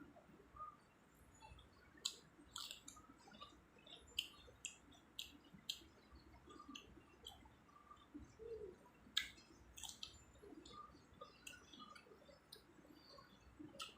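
Close-miked eating sounds: soft chewing with sharp, wet mouth clicks and smacks at irregular intervals, a few louder ones about two, four, nine and ten seconds in.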